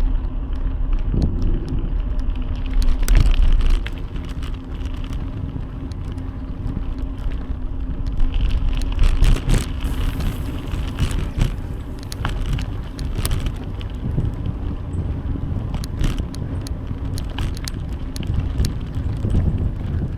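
Bicycle ride heard from the bike: a steady rumble of road and wind noise with many scattered rattling clicks.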